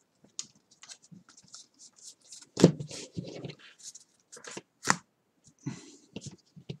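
Stack of 2018 Bowman baseball cards being flipped through and squared up by hand: a string of soft clicks and rustles, with two louder taps about two and a half seconds in and just before five seconds.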